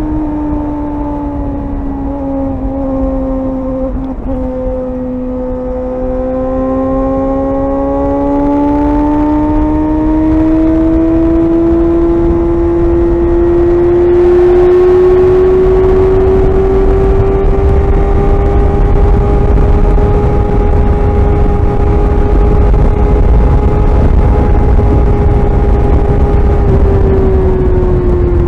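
Suzuki GSR 600's inline-four engine running under way at steady revs. Its note dips slightly, then climbs slowly and holds for a long stretch before easing off near the end, over a low rumble.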